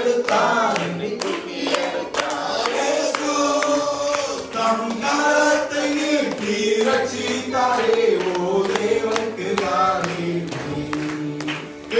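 Amplified group singing of a Tamil Christian worship song, led by a man singing into a microphone, with a steady beat of sharp taps under the voices.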